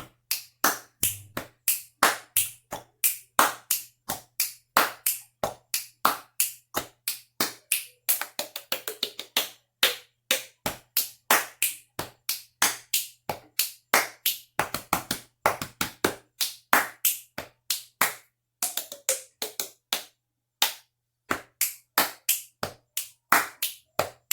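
Rhythmic body percussion: sharp claps and slaps struck in a steady pattern, about two to three a second, with a few short pauses.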